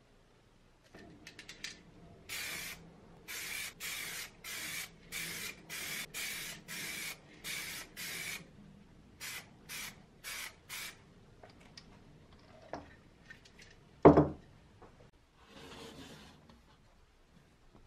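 Aerosol spray-paint can hissing in a run of short bursts, about a dozen in six seconds, then four quicker bursts. A single loud thump follows a few seconds later.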